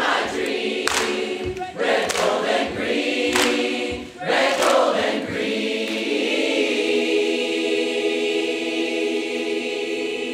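Large crowd choir singing a pop song in harmony, with strummed acoustic guitar, settling into one long held final chord through the second half.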